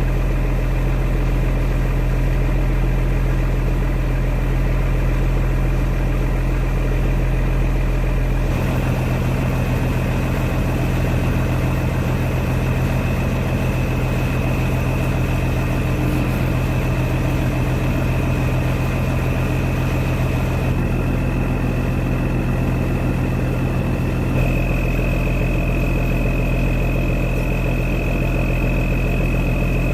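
Boat engine running steadily, with its tone shifting abruptly twice.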